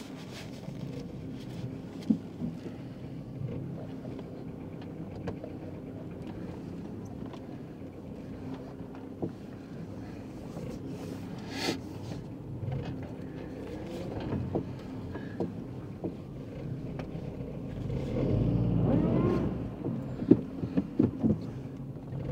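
Car running on the road, a steady low engine and road hum with scattered clicks and knocks. About eighteen seconds in it grows louder for a couple of seconds and rises in pitch, like the engine pulling away.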